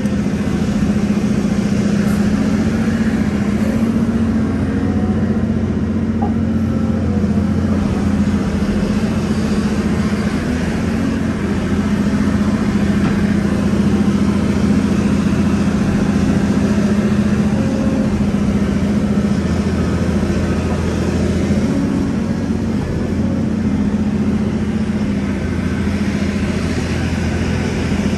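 Volvo EC700 excavator's diesel engine running steadily under working load, heard from inside the cab while the machine digs, swings and dumps.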